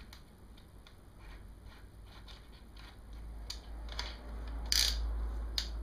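Scattered ratchet-like clicks from a cordless drill/driver being handled, its torque-clutch collar being turned down to a lower setting. The clicks are uneven, grow louder toward the end, and the loudest comes about five seconds in.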